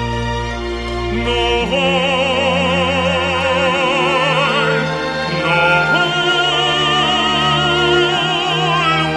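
Operatic singing of a Christmas carol over an orchestra: long held notes with a wide vibrato, with new phrases starting near two seconds in and again around six seconds.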